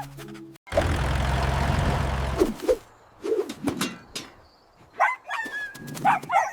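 A machine-like rumble for about two seconds, then a run of short, high animal calls like clucking or chirping, several close together near the end.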